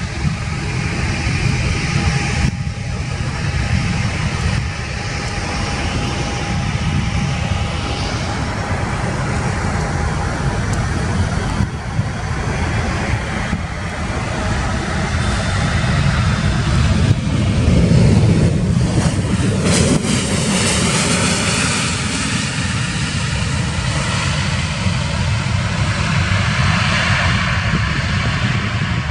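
Jet engines of a Boeing 737 airliner landing: a continuous jet rumble with a thin steady whine through the first third, growing loudest about two-thirds of the way through as the aircraft passes on its landing roll, then easing.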